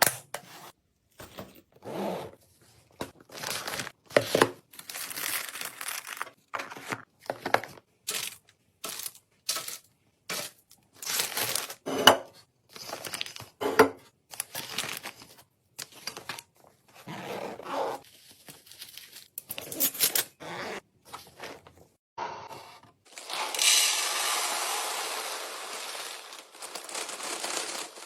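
Plastic packaging crinkling and tearing among quick clicks and knocks of food containers being handled and set into a fridge. Near the end a steady hiss lasts about three seconds.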